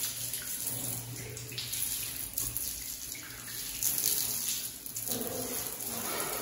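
A jet of water from a shower hose with its head removed, splashing onto a granite countertop and into the sink to rinse off dust. A steady splashing hiss that rises and falls as the jet moves.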